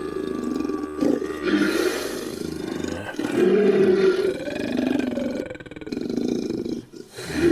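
Made-up monster sound effects: a series of long, low roars and growls, mixed from a human voice and animal and creature recordings.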